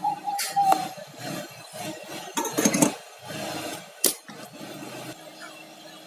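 Light clinks and taps of small metal tools, a short clatter of them, then a single sharp click about four seconds in.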